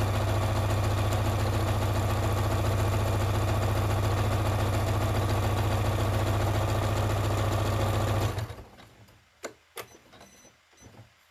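Electric sewing machine stitching at a steady, fast speed, its needle strokes blurring into a continuous hum, then stopping abruptly about eight seconds in. A few light clicks follow.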